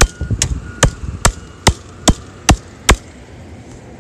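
Steady hammering: eight sharp hammer strikes at about two and a half a second, stopping about three seconds in.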